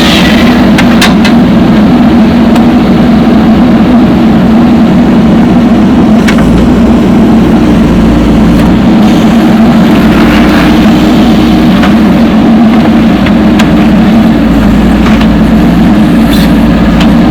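Heavy-equipment diesel engine running steadily under load, close and loud, with a few light clicks or clanks scattered through it.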